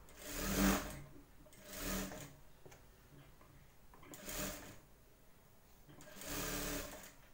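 Sewing machine stitching a blouse sleeve seam in four short runs, each about half a second to a second long, stopping between runs as the fabric is guided.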